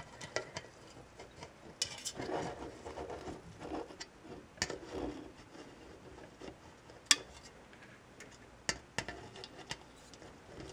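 Soldering work on a metal can: faint scattered clicks and taps of the soldering iron tip and solder wire against the metal, with soft rubbing as the can is handled. The sharpest click comes about seven seconds in.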